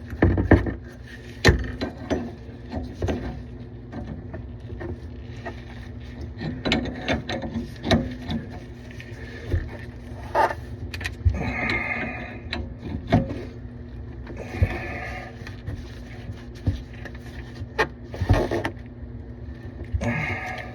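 Irregular metal clicks, knocks and short scrapes of hand tools working on plumbing fittings, over a faint steady hum.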